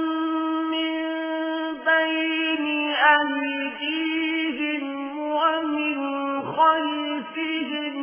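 Quran recitation in the melodic tajweed style: a single voice holds long drawn-out notes, with short ornamented pitch turns and brief breaks every second or two.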